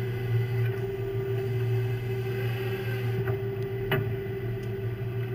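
Steady low drone of a crab-fishing boat's engine and deck machinery, with a few short, sharp knocks of gear on deck, the loudest about four seconds in.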